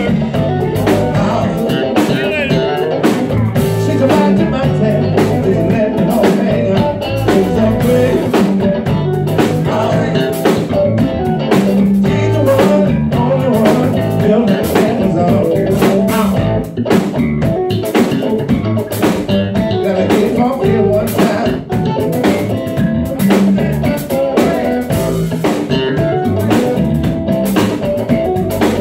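Live band playing amplified music: electric guitar, electric bass and a drum kit keeping a steady beat, with a man singing into a microphone.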